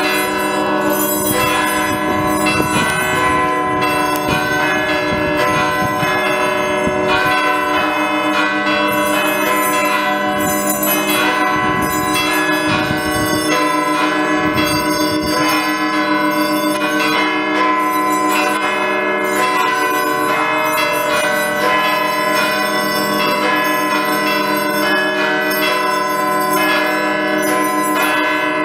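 Church bells pealing continuously, many bells struck in quick, overlapping succession so that their tones ring on together.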